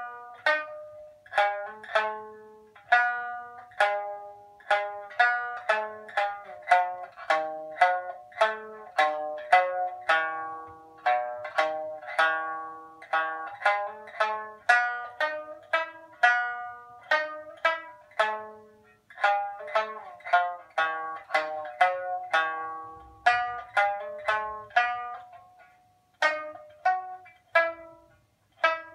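Sanshin, the Okinawan three-stringed lute, played as a slow melody of single plucked notes, each fading quickly, with a short break near the end.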